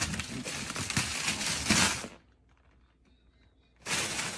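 Wrapping paper being torn and crumpled off a large gift box, rustling for about two seconds, a short pause, then tearing again near the end.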